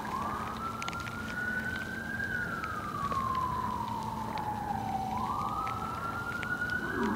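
Emergency vehicle siren in a slow wail. Its pitch rises for about two seconds, falls slowly for about three, then rises again near the end.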